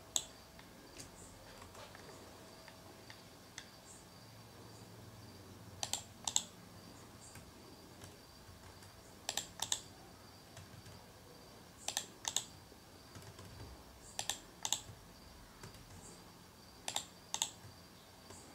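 Computer mouse button clicking, mostly in pairs about half a second apart (press and release while dragging objects), every two to three seconds. A faint steady high whine runs underneath.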